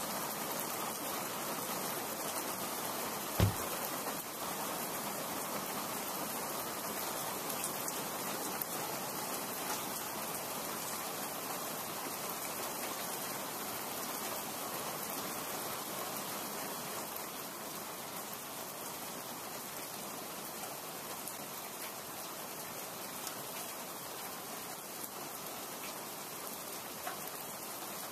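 Steady rain falling, an even hiss, with a single low thump about three and a half seconds in.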